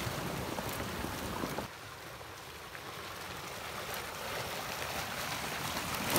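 Flash-flood debris flow, a front of logs and branches grinding down a dry wash: a steady rushing noise with scattered sharp cracks of wood. The rushing drops in level about one and a half seconds in, then slowly builds again.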